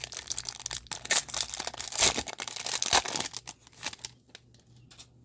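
Foil wrapper of a Pokémon card booster pack being torn open and crinkled by hand: a dense run of rustling and ripping with sharper tears about one, two and three seconds in, dying down to faint handling near the end.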